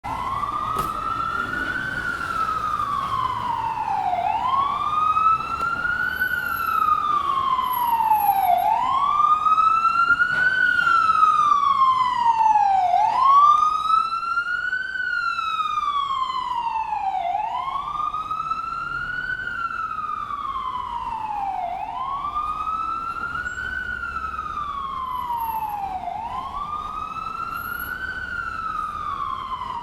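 Ambulance siren sounding a slow wail. The pitch climbs quickly and sinks more slowly, about once every four seconds, seven times over, getting a little louder toward the middle and then easing off.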